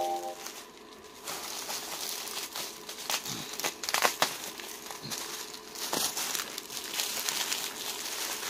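Large sheet of plastic bubble wrap crinkling and rustling as it is handled and unwrapped close to a phone's microphone, with scattered sharp crackles, loudest about four seconds in.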